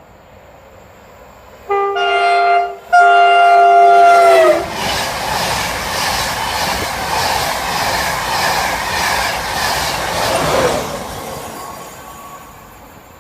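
The two-tone horn of Mark 4 Driving Van Trailer 82213, leading an East Coast InterCity 225, sounded in two blasts, the second longer and falling in pitch at its end as the train reaches the listener. The train then rushes past at speed with a rhythmic wheel clatter over the rail joints, fading away near the end.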